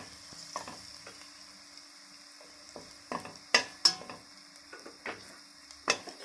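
Onions and ground spices frying in hot oil in a steel kadhai with a steady sizzle, while a flat steel spatula stirs and scrapes the pan, knocking against it several times, loudest about three and a half and four seconds in.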